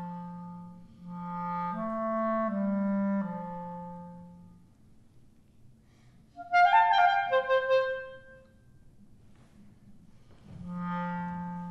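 Solo clarinet playing long, low held notes that step between a few pitches, with short pauses between phrases. About six seconds in comes a sudden, loud flourish of rapid higher notes, after which the low held notes return near the end.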